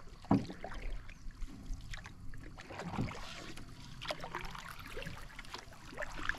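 Canoe paddles dipping and pulling through calm water, with drips and small irregular splashes and a louder thump about a third of a second in.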